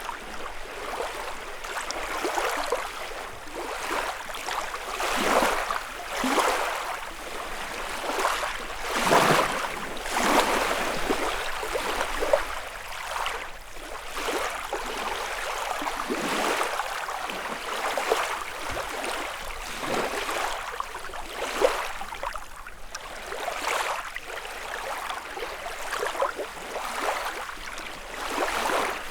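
Small lake waves lapping and washing against the shore, a fresh splash every second or two with a continuous wash of water in between.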